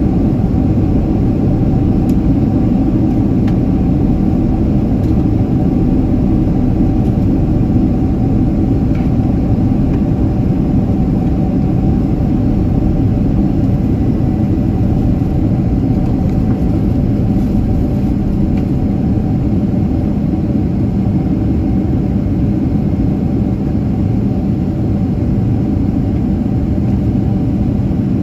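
Steady cabin roar of a Boeing 767-300ER on approach, heard inside the cabin beside the wing and engine. The jet engine and airflow make a deep, even rumble with a faint steady hum running through it.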